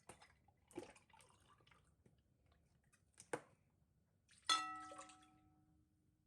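Kitchenware being handled: a few light clicks and knocks, then a sharp strike about four and a half seconds in that rings with a bell-like tone, fading over a second or two.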